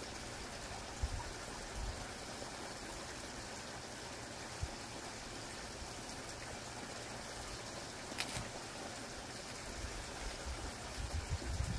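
Quiet outdoor ambience: a steady faint rushing noise, with a single faint click about eight seconds in.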